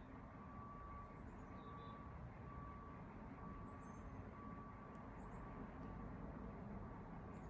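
Faint, steady low rumble of distant city traffic, with a thin on-and-off high hum and a few faint high chirps.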